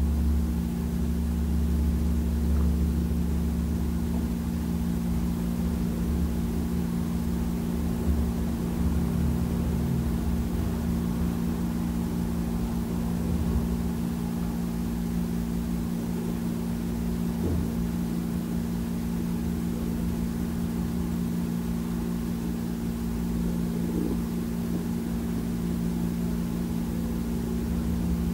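Vehicle engine idling: a steady low hum with no change in speed.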